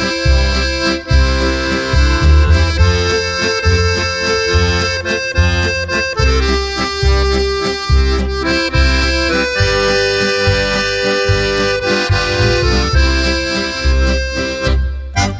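Background music with sustained melodic lines over a steady bass beat, about two beats a second.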